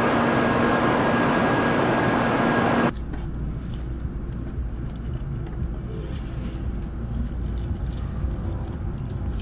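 Shinkansen platform departure bell ringing loudly and continuously, cut off abruptly about three seconds in. Then comes the low rumble and light clicking of an N700S Shinkansen pulling out of the station, heard from inside the train.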